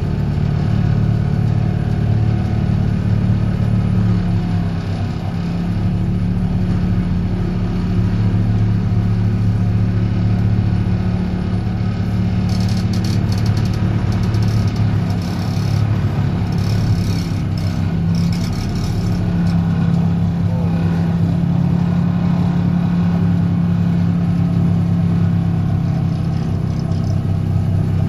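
DPD350T excavator-mounted vibratory hammer running, shaking a steel sheet pile into the ground: a loud, steady low drone, with some faint rattling in the middle.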